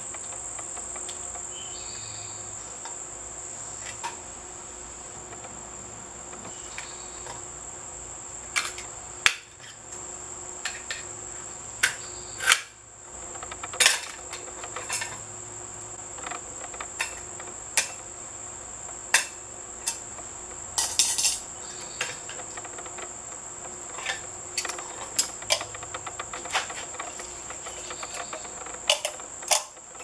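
Sharp metal clicks and clinks, scattered irregularly, as a microwave oven magnetron is taken apart with a screwdriver and pliers and its metal housing and parts knock against the tools. Under them is a steady high-pitched drone of insects.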